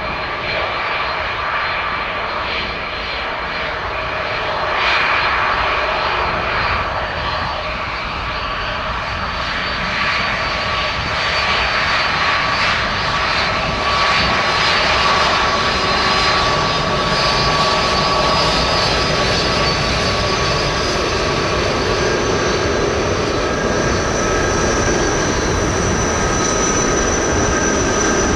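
Jet airliner engines running close by: a steady rushing noise with a high whine of several held tones, growing somewhat louder over the first half and then holding.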